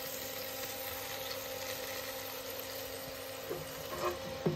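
Air fryer running with a steady hum and hiss while its basket is pulled open on a roasting chicken, with a few light knocks near the end.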